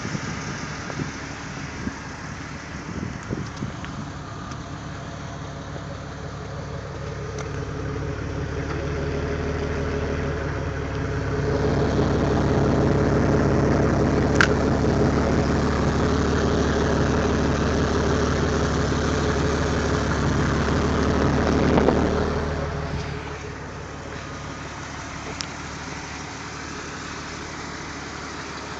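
2001 Jeep Cherokee's 4.0-litre straight-six idling steadily. The exhaust note gets clearly louder for about ten seconds from about twelve seconds in, close to the tailpipe, then falls back.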